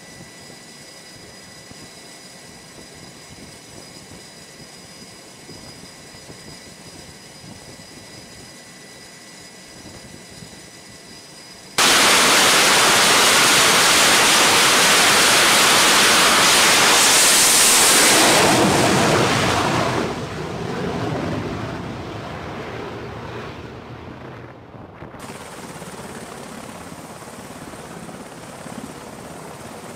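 F/A-18F Super Hornet jet engines on a carrier catapult: first a steady, fairly quiet running with a thin whine. About 12 seconds in the noise turns suddenly very loud, as at full power for launch, holds for about seven seconds, and fades after about 20 seconds as the jet goes. Near the end a Seahawk helicopter's rotor and turbine run steadily at lower level.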